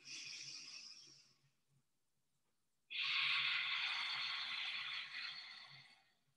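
A woman breathing deeply. A faint breath fades out about a second in, and after a short pause comes one long, audible breath lasting about three seconds.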